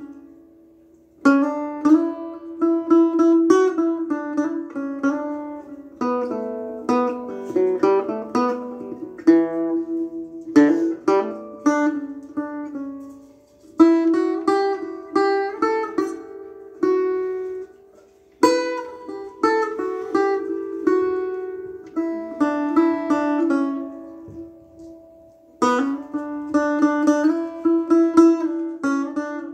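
Solo acoustic guitar picking an instrumental melody in E dorian, in standard tuning. It plays quick runs of single notes in phrases a few seconds long, each opening sharply and letting the notes ring and fade before the next.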